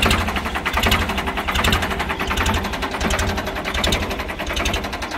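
Ford 3600 tractor's three-cylinder diesel engine running with a rapid, even exhaust beat, the Ford tractor's characteristic "fakara" bark.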